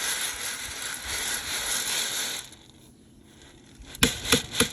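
Rustling and crinkling for about two and a half seconds, then after a short lull footsteps crunching through snow near the end, about three steps a second.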